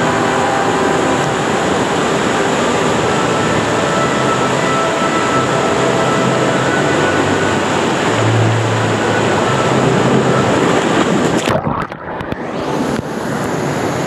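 Water rushing and churning down an indoor wild-water slide channel, loud and steady, heard from the rider's position at water level. Near the end the sound goes suddenly muffled for a second or so as the ride empties into the splash pool, then pool water sloshes.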